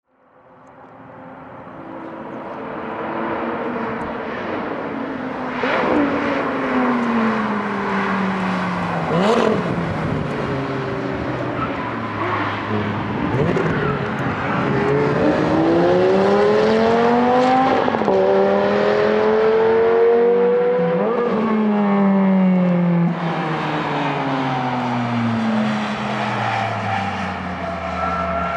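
High-performance sports car engines on a race circuit. The sound fades in from silence over the first few seconds. The exhaust note climbs in pitch and drops sharply several times as the cars shift through the gears, then falls steadily near the end as they slow.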